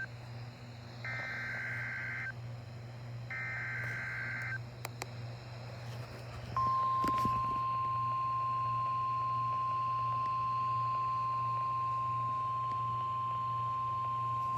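NOAA Weather Radio emergency alert: the last two of the three SAME digital header bursts, short harsh data screeches about a second long, then a couple of clicks and the steady 1050 Hz warning alarm tone, which starts about six and a half seconds in and holds. A low hum runs underneath. These tones open a severe thunderstorm warning broadcast.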